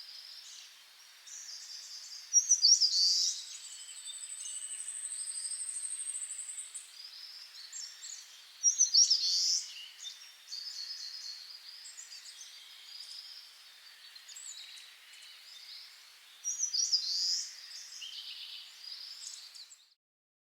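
Birds singing: a loud song phrase comes three times, about seven seconds apart, over softer chirping. A long, high, thin trill runs a few seconds in. The sound cuts off suddenly just before the end.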